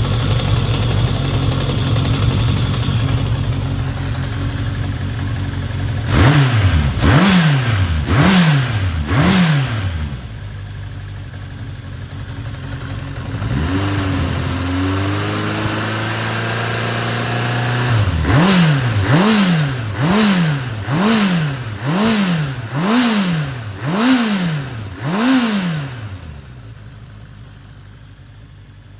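Honda CB750 (RC04) air-cooled inline-four engine idling, then blipped on the throttle again and again, each rev rising and falling quickly. In the middle it is held for a few seconds at a higher steady speed, then given about eight more blips. It runs strongly, with no abnormal noise, as the seller describes it.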